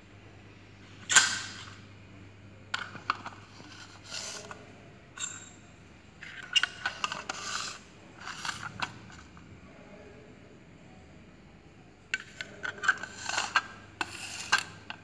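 Plastic Petri dishes being handled on a hard tabletop: irregular clicks, knocks and short scrapes as they are moved and set down. There is a sharp knock about a second in, and busier clusters of clicking in the middle and near the end.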